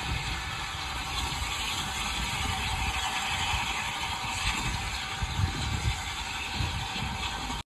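Steam train pulling away into the distance, a steady hiss heard under uneven low rumbling of wind on the microphone. The sound cuts off suddenly near the end.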